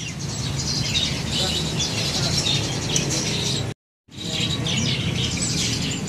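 Many caged songbirds chirping densely over a low, steady background rumble. The sound cuts out completely for a moment a little under four seconds in, then the chirping carries on.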